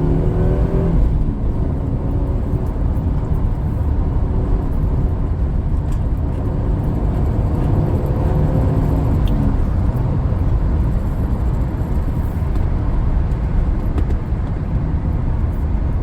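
Lexus SC300's inline-six engine and road noise heard from inside the cabin while driving: a steady low rumble. The engine note rises in pitch briefly near the start and again about halfway through as the car accelerates.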